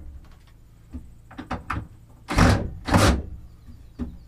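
Cordless drill driving mounting screws into a wooden wall: two short bursts just under half a second each, close together near the middle, with light clicks and knocks of handling around them.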